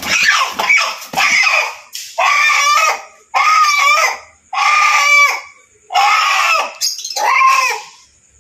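Black Kadaknath chicken squawking loudly and repeatedly while it is held and handled. A couple of seconds of ragged cries give way to about five longer squawks, each a little under a second, roughly one every second and a quarter.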